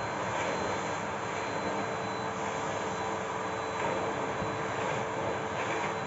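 Bosch BGS21X320 bagless canister vacuum cleaner running steadily with a constant whine, its floor head pushed back and forth across a hard laminate floor.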